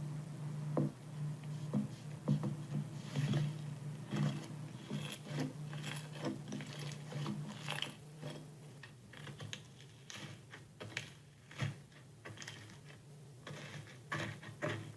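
Slime being squeezed and poked by hand, giving irregular small clicks and pops, over a steady low hum that weakens about halfway through.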